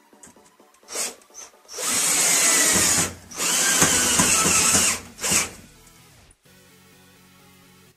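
Electric power drill running in two long runs of a second or two each, with short blips of the trigger just before and just after.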